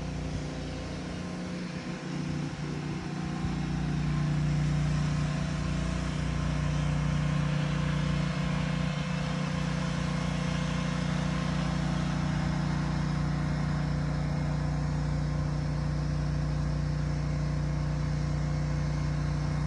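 Car engine idling steadily, a little louder from about four seconds in.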